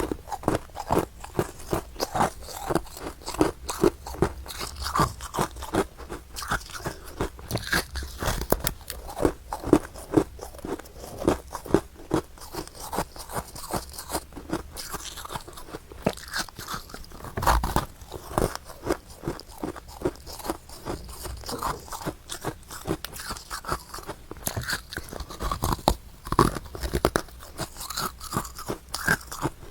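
Freezer frost being bitten and chewed up close, a steady run of crisp crunches several a second.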